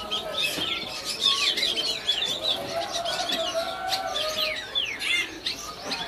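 Many caged small songbirds chirping at once: rapid, short, downward-sweeping chirps overlapping one another.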